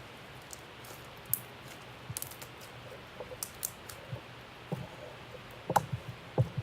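Slime being squeezed and poked by hand, giving scattered small clicks and sticky pops that come thicker toward the end, with two louder snaps near the end.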